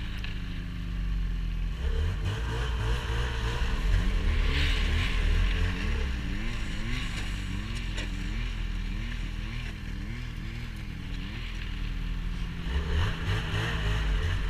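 A small vehicle engine running steadily. Its pitch rises and falls in a regular wave, roughly every three-quarters of a second, through the middle of the stretch, over a low rumble.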